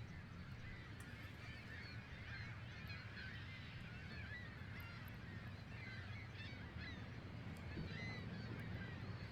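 A distant flock of birds calling continuously, many short overlapping calls, faint over a low steady rumble.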